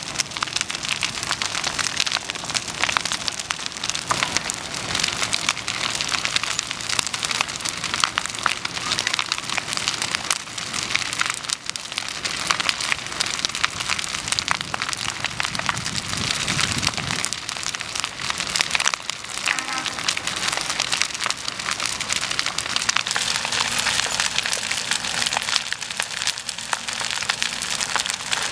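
Burning wood-frame house crackling and popping, a dense run of sharp snaps over a steady hiss of flame.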